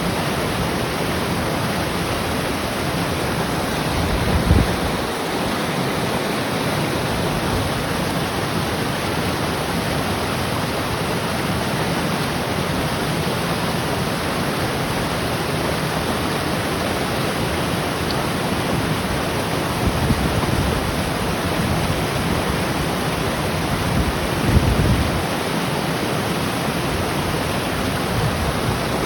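Mountain river tumbling over rocks: a steady, full rush of water, with a few brief low rumbles, once about four seconds in and twice near the end.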